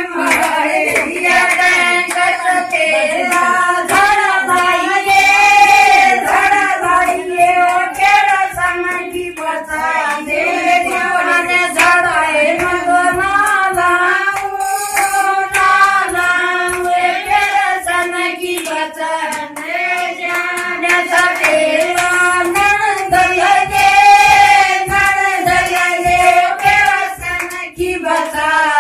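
A group of women singing together in unison, with rhythmic hand clapping throughout.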